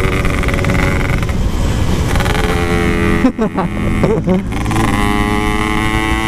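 Yamaha RX-King two-stroke motorcycle engine running under way through a Packing Power aftermarket exhaust. The revs waver and drop briefly about three seconds in, then climb steadily as it accelerates.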